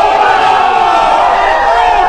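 A crowd of people shouting together in one loud, long yell from many voices.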